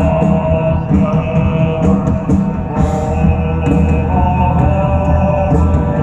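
Live band playing loud rock music through a PA, with a steady drum beat and long held melody notes, heard from within the audience.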